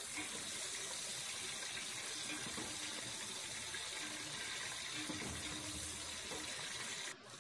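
Green chillies and whole spices sizzling in hot oil, a steady hiss that cuts off suddenly near the end.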